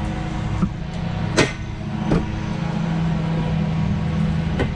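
A steady low hum like a running motor vehicle engine, with four short sharp clicks from handling as nylon strap is knotted.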